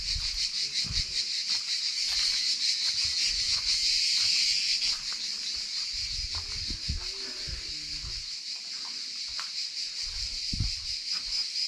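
A chorus of cicadas calling in a steady, high, rapidly pulsing rasp, with irregular low thuds of footsteps.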